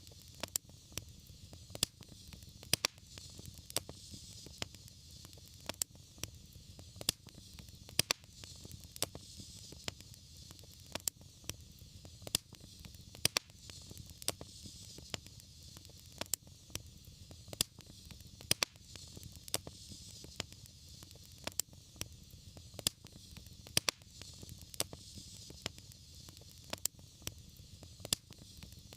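Wood fire burning in a fireplace: a steady soft hiss and low rumble with frequent sharp, irregular crackles and pops.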